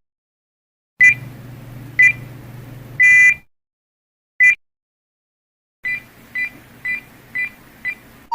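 Electronic low-battery alert beeps from several devices in turn. First come two short beeps about a second apart and a longer beep, then a single beep, then five quick beeps about half a second apart, with a low hum under the beep groups.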